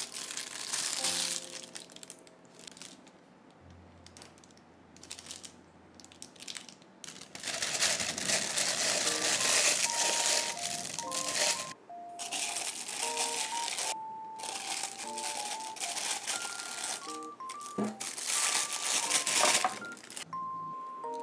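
A plastic piping bag crinkles and rustles in several long stretches as it is handled and opened out in a glass, over soft background music with a simple plucked-note melody.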